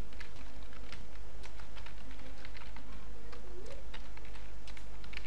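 Computer keyboard being typed on: a run of quick, irregular key clicks as text is entered, over a steady low hum.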